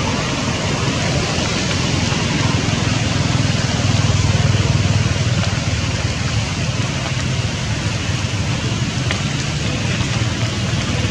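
Heavy rain pouring onto a flooded, rocky stream: a steady hiss of rain and running water with a low rumble underneath, swelling slightly midway.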